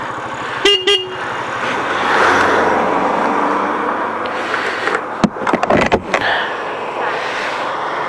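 Rusi Nova 150 motorcycle engine idling and switched off about a second in, just after a brief high-pitched tone. Traffic noise follows, then a quick cluster of metallic clicks from the ignition keys about five seconds in.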